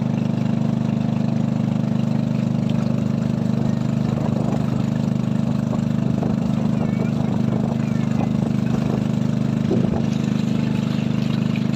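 Small boat engine running steadily at cruising speed while the boat is under way, a constant low drone.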